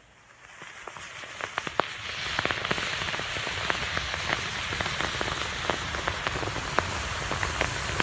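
Massed match heads flaring in a chain reaction: a fizzing hiss that builds over the first two seconds, then a steady crackle with scattered sharp pops.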